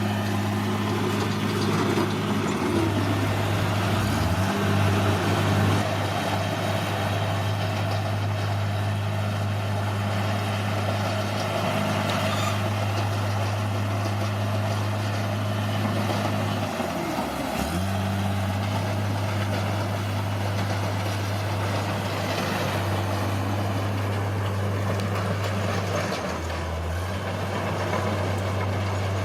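A bulldozer's diesel engine runs steadily, with a deep hum. Its pitch drops and recovers briefly three times: about three seconds in, near the middle, and near the end.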